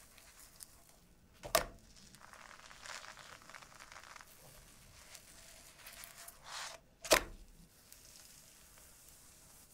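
A thin egg-and-dill pancake being turned and pressed in a nonstick frying pan: the metal spatula clicks sharply against the pan about a second and a half in and again about seven seconds in. Between the clicks the pancake makes a soft sizzle and rustle.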